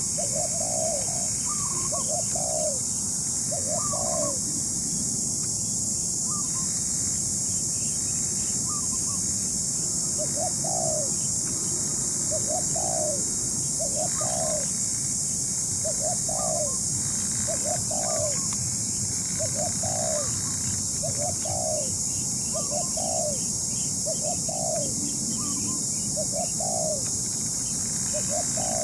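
Spotted doves cooing: a long run of short coos at about one a second, with a pause of several seconds after the first few notes. A steady high hiss runs underneath.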